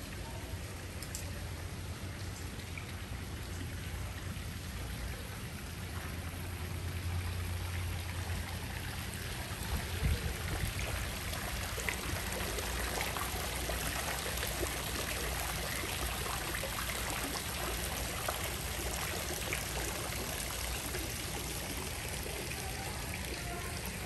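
Courtyard fountain with water splashing and trickling into its stone basin, growing louder through the middle as it is passed and then fading. A single brief thump about ten seconds in.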